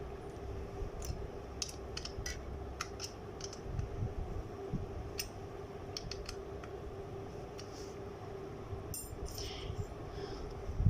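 Scattered light metallic clicks and ticks of a Torx key working a bicycle disc brake caliper bolt loose, over a low rumble of handling.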